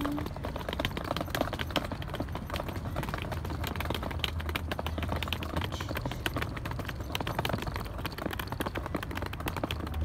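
Rolling suitcase wheels clattering over brick paving, a continuous rattle of quick small clicks over a low rumble.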